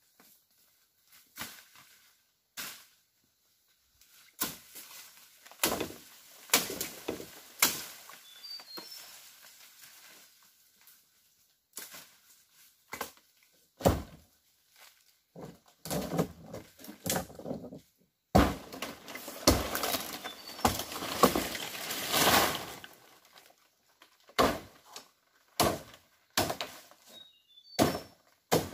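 Irregular sharp knocks and thuds from bamboo being cut and handled, with a longer stretch of crackling and rustling in the middle. A bird chirps faintly a couple of times.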